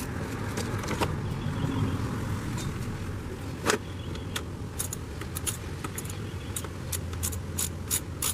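Metallic clicks and clinks of the negative battery cable's terminal clamp and a wrench as the clamp is refitted to the battery post. The sharp clicks are scattered at first and come quicker near the end.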